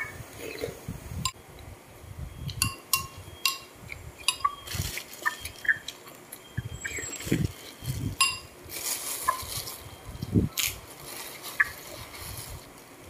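Eating noises from a bowl of meatball and sweet corn soup: a metal spoon clinks against the bowl between slurps and chewing, in a run of short separate clicks and soft mouth sounds. Plastic crinkles near the end.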